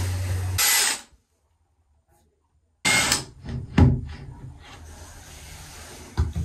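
Power drill boring into ceramic tile with a Ryobi masonry bit. It stops dead for about two seconds, restarts loudly with a sharp knock, then runs on at a quieter, steady level.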